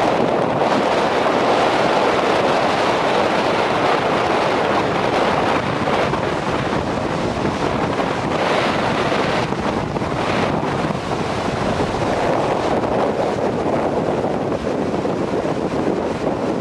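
Strong gusty wind buffeting the microphone over the surf of storm-churned seas breaking on the shore, a steady loud rush of noise.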